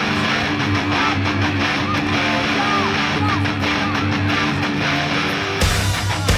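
Guitar-led rock music; near the end a heavier, harder-hitting section begins.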